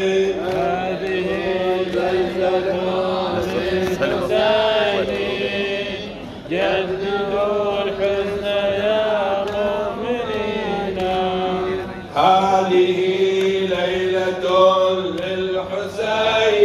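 Male voices chanting a Shia nawha, a mourning lament, into a microphone: a slow melodic chant of long held notes, sung in phrases with short breaks about six and twelve seconds in.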